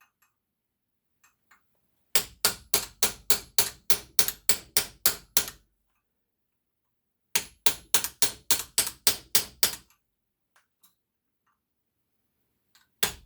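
A hammer striking a metal water heater fitting in two quick runs of blows, about four a second, with a pause of about two seconds between them, to split the heated copper apart from the steel piece inside.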